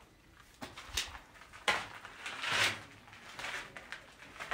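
Footsteps crunching, about one step a second, with a couple of sharp clicks among them.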